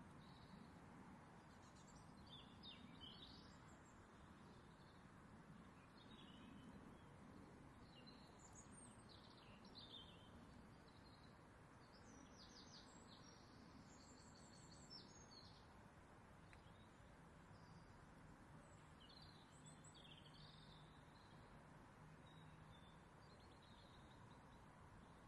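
Near silence: faint room hiss, with distant birds chirping now and then.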